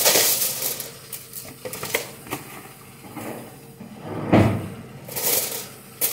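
Aluminium foil crinkling as a sheet is handled and pressed over a glass salad bowl, with a few small clicks and one dull thump about four seconds in.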